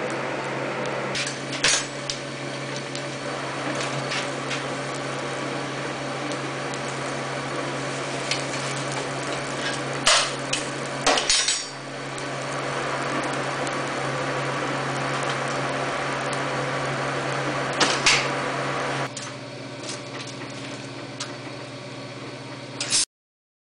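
Steady hum and rush of a coal forge's air blower, with sharp metal clanks as the iron frame is worked in the fire with tongs. The hum drops away about 19 seconds in, and a single sharp metal impact comes near the end.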